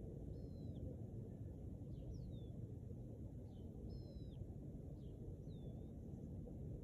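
Faint, thin, high bird calls: short down-slurred whistles and chirps, roughly one a second, over a steady low rumble.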